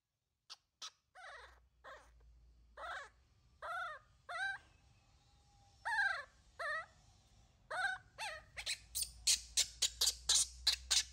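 Infant macaque crying: a series of short, arching, pitched whimpering cries, then from about eight seconds in a fast run of short, sharp, high squeals, about three a second.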